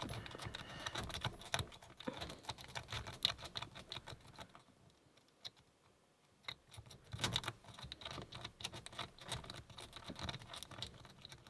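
A rake pick being worked rapidly in the keyway of a Burg Wächter Quadra padlock's four-pin cylinder, a fast run of light metallic clicks and scratches. The clicking stops for about two seconds midway, with only a couple of single ticks, then starts again.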